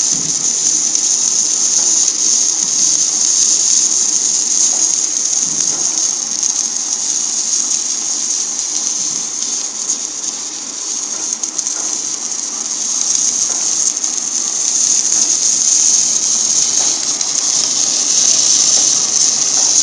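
Automatic wire-fed welding arc burning steadily at about 335 amps and 31.6 volts, a continuous high hiss that dips slightly about halfway through.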